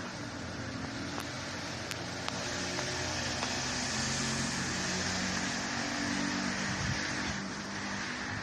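Road vehicle noise: a steady rush with a low hum, growing louder around the middle and easing off near the end.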